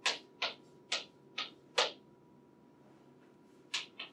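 Chalk writing on a blackboard: a quick run of short, sharp chalk strokes and taps over the first two seconds, then two more near the end.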